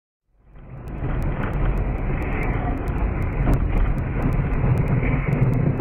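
A car driving on a winter road, recorded by a dashcam microphone with a narrow, muffled range: steady engine and tyre noise, starting abruptly about a third of a second in.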